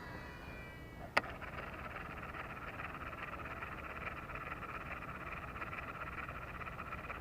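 A chorus of frogs calling steadily and densely, starting just after a sharp click about a second in.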